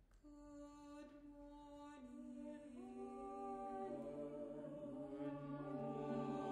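Unaccompanied double choir singing: voices enter one after another on long held notes, stacking into a chord that slowly swells louder. Low voices join about four seconds in.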